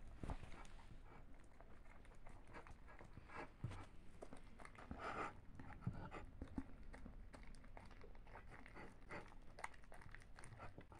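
A dog eating a rice, peanut butter and carrot cake off a small plate: faint, irregular licking, smacking and chewing with many small clicks, and a louder noisy moment about five seconds in.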